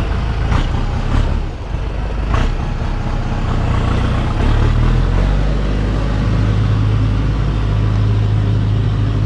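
Farm tractor's diesel engine running steadily at close range, with a few short knocks in the first couple of seconds and a shift in the engine note about halfway, as the tractor is moved.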